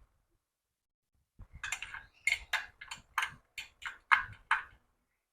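A run of about a dozen light, sharp metallic clicks, roughly three a second, from an adjustable wrench being set and fitted onto a threaded lamp-holder nipple.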